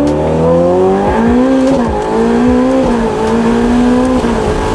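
Ferrari 488 Pista's twin-turbo V8 through a Novitec exhaust under hard acceleration. The pitch drops with a quick upshift at the start, climbs for about a second, then holds fairly steady with brief dips about a second apart.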